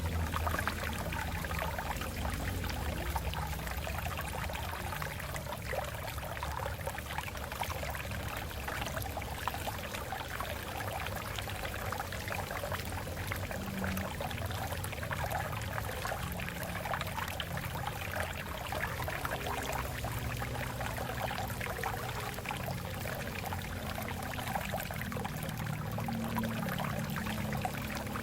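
Water flowing and splashing steadily over rocks.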